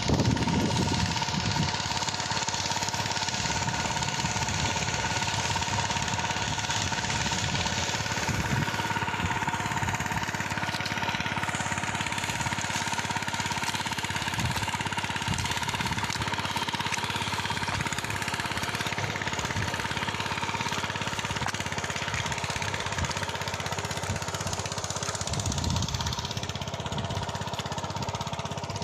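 Farm machine's engine running steadily during ploughing, a continuous rattling drone with a steady high tone over it.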